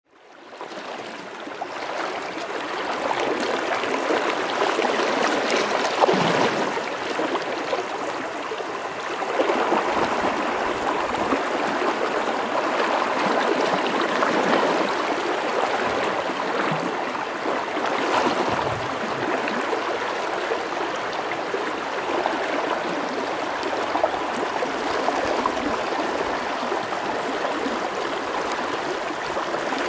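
A shallow river running over riffles, making a steady rush of flowing water that fades in over the first second or so.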